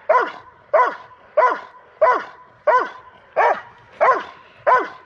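Doberman barking in a steady, even rhythm, about one and a half barks a second, eight barks in all: the sustained bark of a protection dog working the decoy.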